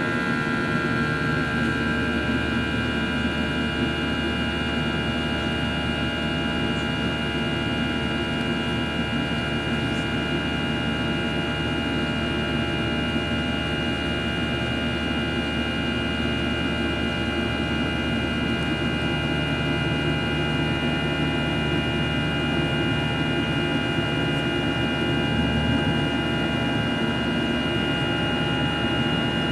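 Cabin noise of a Boeing 737-800 in its climb after takeoff: the CFM56-7B turbofan engines give a steady rushing drone with several steady high whining tones above it, heard from inside the cabin.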